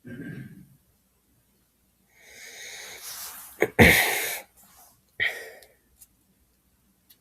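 A sneeze: breathy noise builds up for about a second and a half, then breaks into one sudden loud burst about four seconds in, with a shorter sharp burst of breath a second later.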